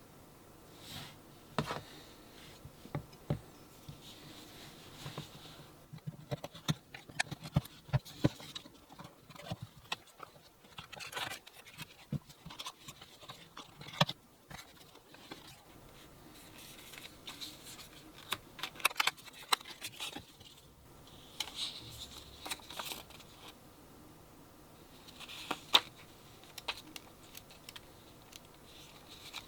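Packaging of a pair of earbuds being handled and opened by hand: scattered clicks and taps with short bursts of rustling and scraping of cardboard and plastic, coming and going irregularly. The sharpest taps come about halfway through and again near the end.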